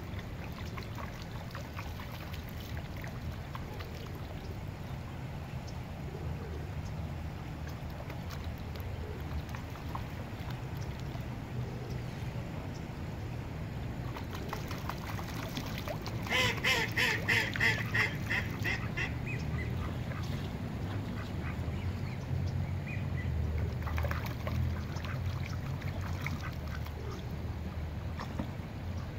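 A duck quacking: a quick run of about eight quacks a little past halfway, with a few fainter ones a few seconds later, over a steady low rumble.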